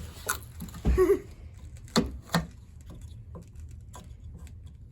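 A few sharp clicks and knocks, as of things being handled and set down on a work surface, with a short voice sound about a second in, over a low steady hum.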